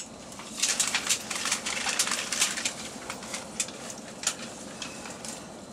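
Irregular clicks and crackles, several a second, over faint steady running noise inside a moving Frecciarossa high-speed train carriage. They die down near the end.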